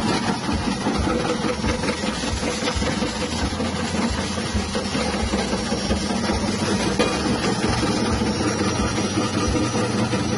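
Electric chip-slicing machine, driven by a 180-watt motor, running steadily: a constant hum with a dense, irregular clatter.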